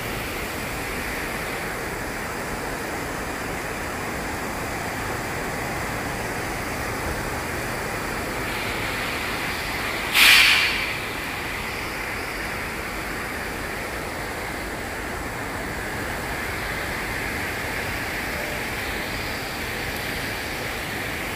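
Steady rain falling, mixed with the hiss of traffic on a wet road. About ten seconds in there is one brief, louder noisy burst lasting under a second.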